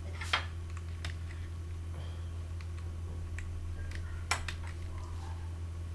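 A few scattered sharp clicks of computer keys over a steady low electrical hum, two of the clicks louder: one about a third of a second in and one just after four seconds.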